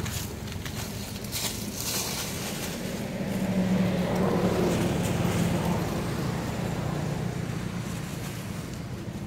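A motor vehicle engine hums steadily, growing louder about three and a half seconds in and easing off after about six seconds, as if passing by. In the first two seconds dry leaves crackle as macaques scuffle through the leaf litter.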